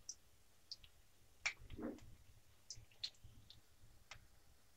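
Faint, scattered pops and crackles of semolina-and-coconut snack balls deep-frying in hot oil in a kadai, about a dozen short ticks with no steady sizzle.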